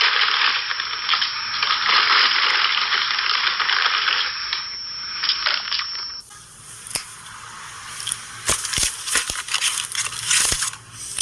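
Two sound effects one after the other: a steady, dense crackling hiss for about six seconds, then a sparser stretch of sharp clicks and rattles, busiest near the end.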